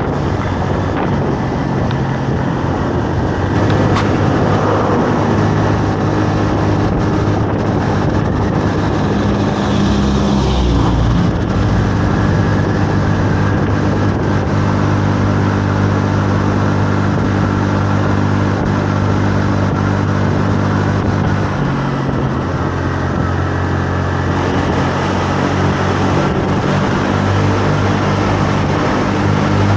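Honda Navi 110's small single-cylinder engine running at a steady cruise, with wind rushing past the microphone. The engine note changes briefly about ten seconds in and again about twenty-one seconds in, and there is a sharp click about four seconds in.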